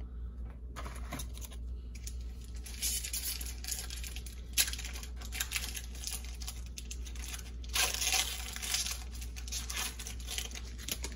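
Trading card pack wrapper being torn open and crinkled by hand. The crackling starts about a second in and goes on in irregular bursts, with the sharpest rips just under five seconds in and around eight seconds.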